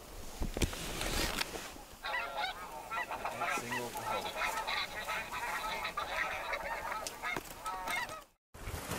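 A large flock of snow geese calling: many short, high honks overlapping, thickest from about two seconds in, over wind buffeting the microphone. The sound breaks off abruptly near the end.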